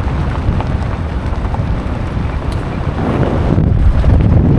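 Wind buffeting the microphone over the low rumble of a moving vehicle, swelling a little about three seconds in.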